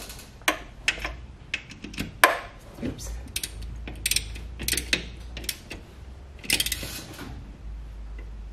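Hand ratchet wrench clicking in short, irregular runs as it tightens the mounting nuts of a new master cylinder on the brake booster. A dense run of clicks comes about six and a half seconds in.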